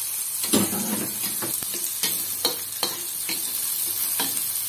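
Chopped shallots, garlic and chilies sizzling in oil in a wok while being stir-fried, with a spatula scraping and knocking against the pan several times at irregular intervals.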